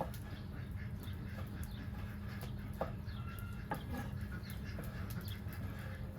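Chickens clucking with a few short calls, over a steady low background rumble, with a couple of light knocks.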